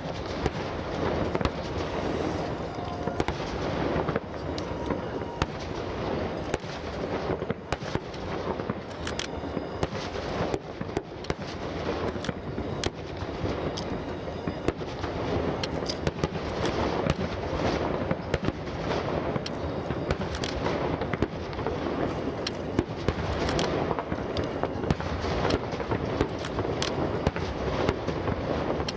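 Water starmine fireworks: shells bursting in half-spheres on a lake surface in a rapid, unbroken string of booms and crackles, many a second running together with no pause.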